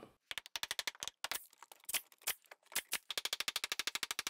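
Recording audio breaking up as it drops out: a rapid, irregular train of sharp digital clicks with dead silence between them, at times about eight clicks a second.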